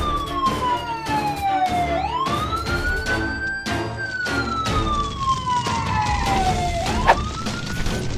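Fire engine siren wailing, each cycle a quick rise in pitch and then a slow fall, repeating about every four seconds, over background music with a steady beat. A sharp click sounds about seven seconds in.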